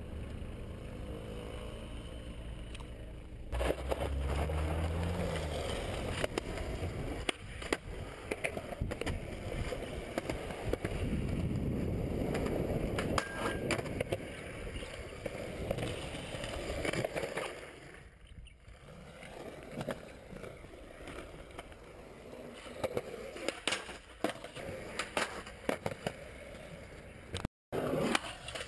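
Skateboard wheels rolling on concrete, broken by sharp clacks of the board popping and landing tricks several times.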